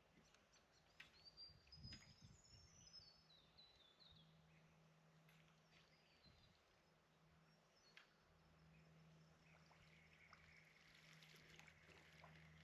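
Faint outdoor bushland ambience: a small bird sings a cascade of high notes that step down in pitch, about a second and a half in, with a few light clicks. Near the end a steady high insect-like buzz sets in.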